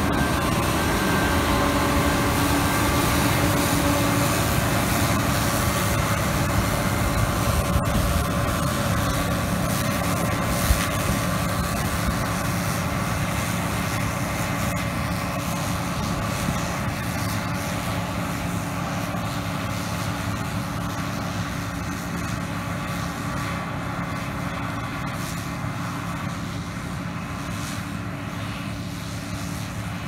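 John Deere Maximizer combine harvester running under load while cutting wheat: a steady engine and threshing drone with a few constant whining tones, slowly fading as the machine moves away.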